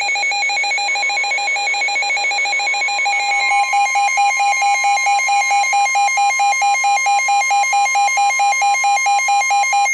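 Weather radios' alert alarms beeping rapidly in a fast pulsing pattern at the start of a new Emergency Alert System warning. The steady 1050 Hz NOAA Weather Radio warning tone joins about a second in, and the beeping grows louder about three and a half seconds in.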